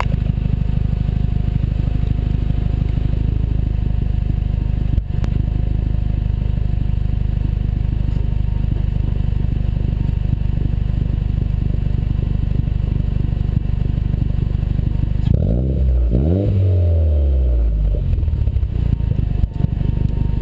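Toyota 3S-GTE turbocharged four-cylinder engine running, with a brief dropout about five seconds in and a quick rise and fall in engine speed near the end. The uneven running is the hiccup the owner can't explain; he suspects it began with newly fitted spark plugs.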